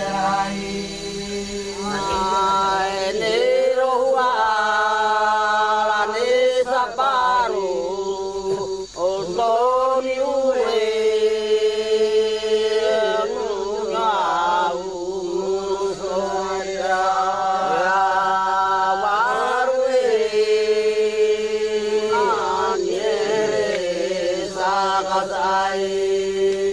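Closing title music: a chanted vocal line of long held notes that glide from one to the next over a steady low drone.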